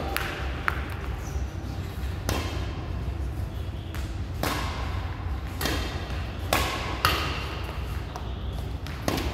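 Badminton rackets hitting shuttlecocks in a feeding drill: a run of sharp pings, one every second or two, as shots are fed and returned.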